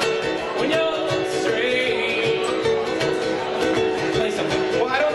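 Live song: ukulele strumming under sung vocals.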